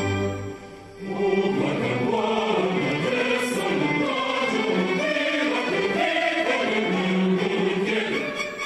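Large mixed choir of men's and women's voices comes in about a second in and sings with the symphony orchestra, after a short lull as the orchestral passage dies away.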